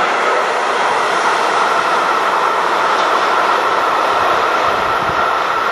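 Wagons of a coal train rolling on the rails, a steady dense rolling noise with a steady high-pitched ring over it.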